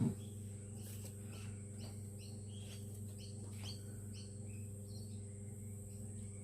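A bird chirping in short, high calls, several in a row, over a steady low electrical hum, with a brief thump at the very start.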